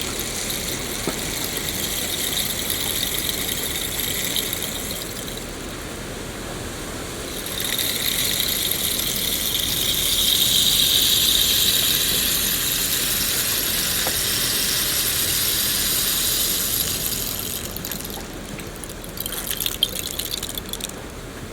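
Rain falling in a forest, a steady hiss that swells a third of the way in and eases near the end.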